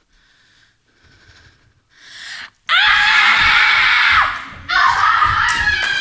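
After a quiet start, an audience bursts into loud cheering and screaming about two and a half seconds in, dips briefly a little after four seconds, then goes on cheering.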